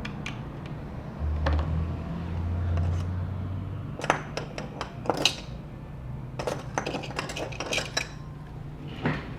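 Small metal tools and parts being handled on a work surface: light clinks and clicks in quick clusters about four seconds in and again around seven seconds, over a low hum early on.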